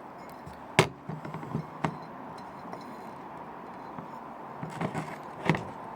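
A candle and glass jar being handled: a few sharp clicks and knocks, the loudest just under a second in and another near the end, over a steady low hiss.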